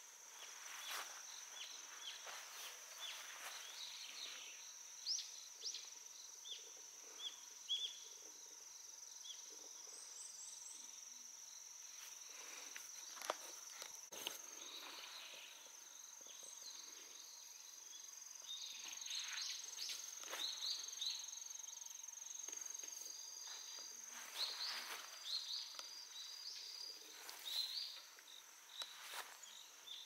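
Faint steady high-pitched trill of insects singing in the undergrowth, with many short high chirps scattered over it and light footsteps and rustling through vegetation.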